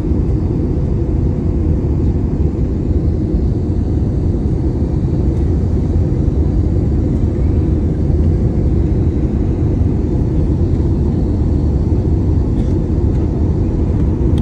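Airliner cabin noise in flight: a steady, even rumble of engines and rushing air, heaviest in the low range.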